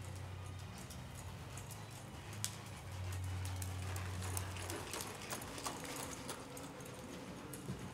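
Hoofbeats of a paint horse moving at a slow gait on soft dirt arena footing, as irregular soft clicks and thuds.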